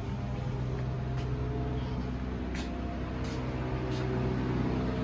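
Steady low mechanical hum with a few sharp clicks.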